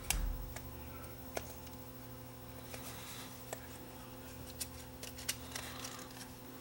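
Small clicks and light scraping of the metal back and plastic chassis of a Sony Walkman WM-10 cassette player being fitted together by hand, with a sharp click just after the start and a few lighter ones spread through.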